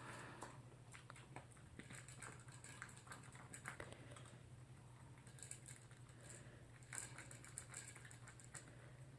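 Toy poodle eating from its dish: faint, irregular clicks and crunches of chewing and of food and bowl being nosed about, over a faint steady low hum.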